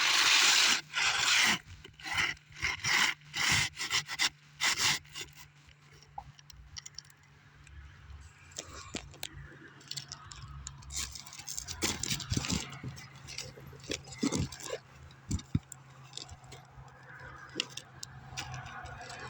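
Scraping and rubbing as an old asphalt roofing shingle is worked loose and pulled out from under the surrounding shingles: a run of loud scrapes for the first five seconds, then quieter scrapes and sharp clicks.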